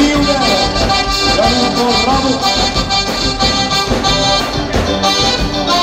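Live band playing an instrumental break, an accordion carrying the melody over a steady beat.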